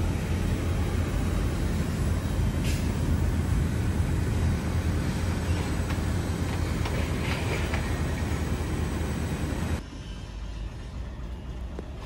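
Steady low rumble and hum of Mitsubishi Electric VRF outdoor units running, their compressors and condenser fans going, with a light click a little over two seconds in. The rumble drops suddenly to a quieter hum near the end.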